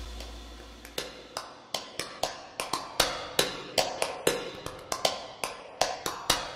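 Background music: a held chord fading out, then a run of dry percussive clicks, about three a second, building toward the full track.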